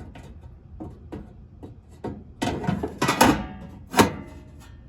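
Knocks and clanks of pellet grill parts being set back into place by hand, a cluster of strikes about two and a half seconds in and the sharpest one about four seconds in.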